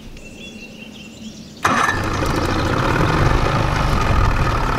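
A 30-year-old two-stroke outboard motor starting: it catches suddenly about one and a half seconds in and keeps running steadily.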